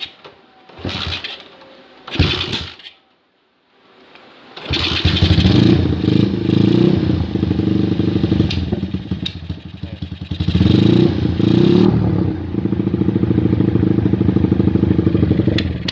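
Honda GL single-cylinder four-stroke motorcycle engine: a few short bursts, then it catches about five seconds in, is revved up twice and runs unevenly between. It is the bike's coughing-at-idle fault with flame coming back, which the mechanic suspects comes from a worn camshaft giving uneven valve lift.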